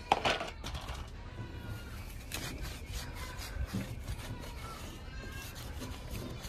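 Microfiber towel rubbing and scuffing over a car seat's metal frame and recliner mechanism, in irregular strokes. A sharp click comes right at the start.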